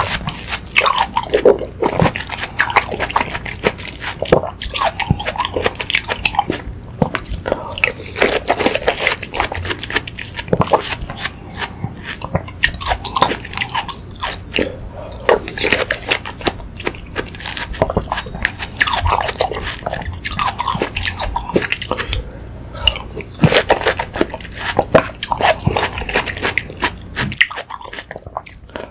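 Close-up chewing and biting of watermelon hwachae: spoonfuls of watermelon chunks, banana slices and small jelly cubes in cold fruit punch, eaten with a steady run of crunchy, wet mouth clicks and crackles.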